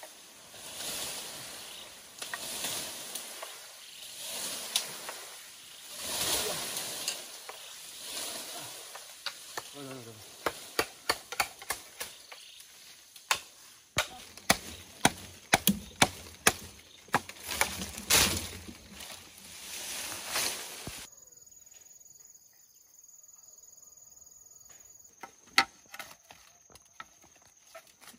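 Rustling of leaves and branches, then a run of sharp knocks on wood, several a second, as it is chopped or struck. About three-quarters through, it cuts to a quiet bed with a faint high steady tone and a couple of clicks.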